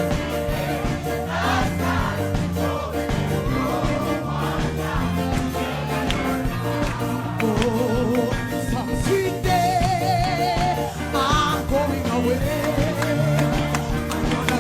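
Gospel music: a choir singing with instrumental backing, with held, wavering notes standing out above it in the second half.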